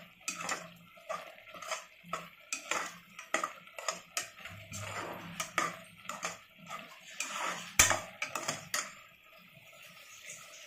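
Metal ladle scraping and clinking against the inside of an aluminium pressure cooker as thick vegetable masala is stirred, in irregular strokes with one sharper knock about eight seconds in, growing quieter near the end.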